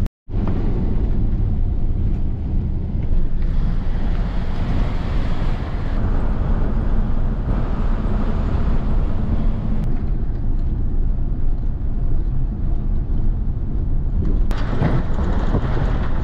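In-cab road noise of a 1999 Ford Ranger pickup driving on a gravel dirt road: a steady low rumble of engine and tyres on the loose surface. The sound cuts out for an instant at the very start and shifts in tone a few times, with a brighter hiss near the end.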